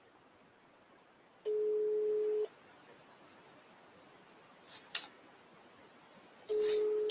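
Telephone ringback tone of an outgoing call heard through a phone's speaker: a steady single-pitched tone about a second long, a pause of about four seconds, then the tone again near the end, meaning the line is ringing and not yet answered. A couple of sharp clicks fall in the pause.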